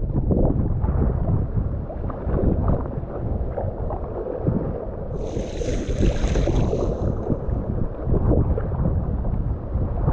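Strong wind buffeting the microphone in a heavy, gusting low rumble, over wind-driven water around a kayak. About five seconds in, a brighter hiss rises for roughly two seconds and fades.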